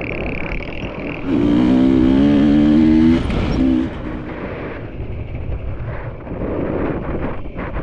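Enduro dirt bike engine on a trail ride. It revs up with rising pitch for a couple of seconds, backs off with a short blip, then runs lower and rougher with scattered knocks and rattles.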